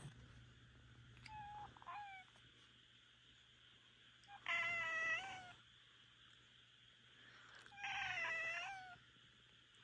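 Minuet cat meowing three times: a short, quieter double call, then two loud, drawn-out meows about a second long each.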